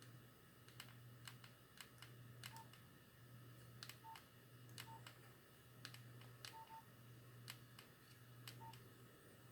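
Faint button presses on a Nokia 6310i mobile phone keypad: irregular soft clicks, some with a short high key beep, over a faint low hum that breaks off about once a second.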